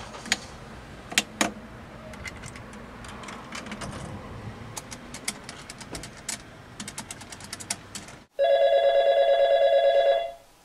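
Scattered light clicks and taps over low background noise, then a telephone ringing about eight seconds in: one warbling two-tone ring about two seconds long.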